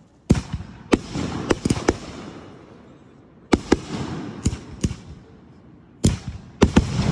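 Fireworks bursting: sharp bangs in three quick clusters, each cluster trailing off in a long, noisy echo.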